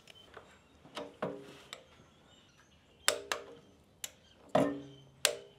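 Click-type torque wrench tightening a motorcycle kickstand's pivot bolt: several separate sharp metallic clicks, some ringing briefly. The wrench clicks over at its set torque of 18 ft-lb.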